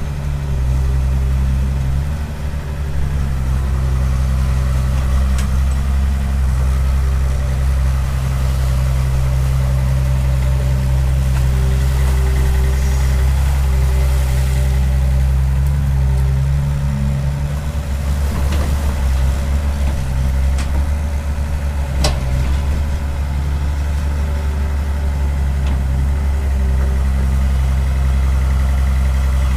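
Tracked excavator's diesel engine running steadily, its note shifting a couple of times as the arm and bucket work. One sharp click comes about three-quarters of the way through.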